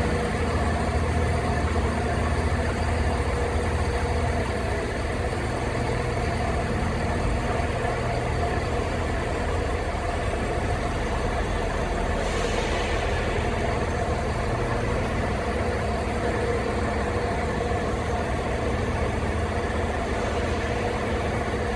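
Class 170 diesel multiple unit's underfloor diesel engine idling steadily, with a brief hiss about halfway through.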